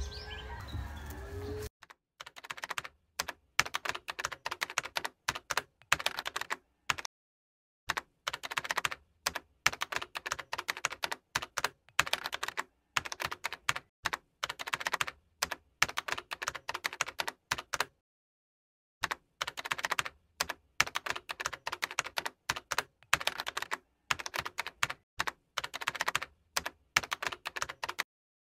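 Keyboard typing: bursts of rapid key clicks, each run lasting a second or two, broken by short gaps of complete silence.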